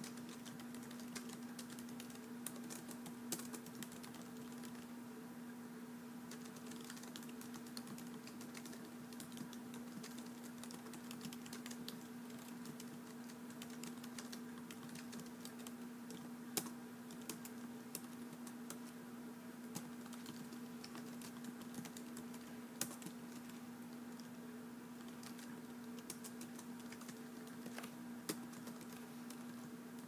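Typing on a keyboard: a dense, irregular run of quiet key clicks with a few louder strikes, over a steady low hum.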